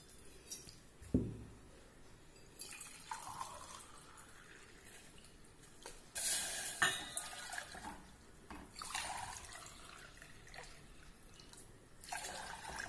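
Water poured from a small steel cup into a stainless steel saucepan, splashing in three pours of a second or two each. A dull knock comes about a second in.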